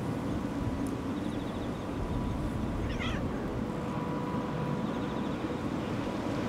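A kitten gives a single short, high, wavering meow about three seconds in, over a steady low background rumble.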